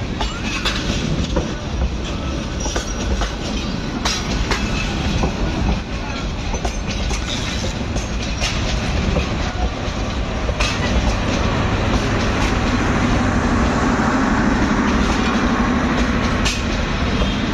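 Train running on the rails: a steady rumble with scattered sharp clicks of wheels over rail joints. A low drone comes in and grows louder about two-thirds of the way through.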